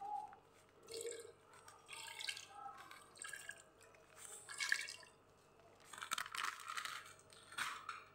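Water poured from above into a stainless-steel pot of uncooked rice, coming in several separate spurts.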